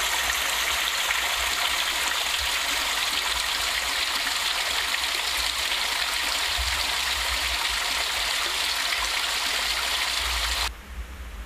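Water rushing steadily at the wooden gates of a derelict canal lock, as water pours through or over them. The rush stops abruptly just before the end.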